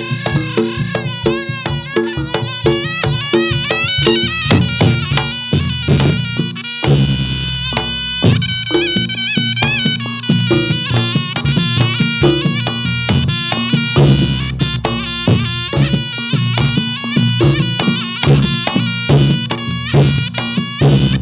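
Reog Ponorogo gamelan music accompanying a Jathilan dance. A shrill double-reed slompret plays a bending melody over steady drum and gong strokes.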